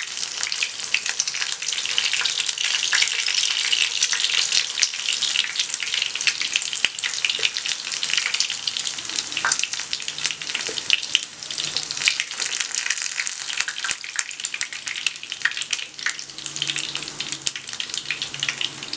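Breaded paneer fingers shallow-frying in hot oil: steady sizzling and crackling, at its loudest in the first half and easing a little later on as the fried pieces are lifted out.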